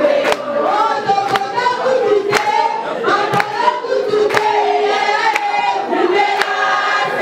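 A group of people singing together, many voices at once, with a sharp beat about once a second.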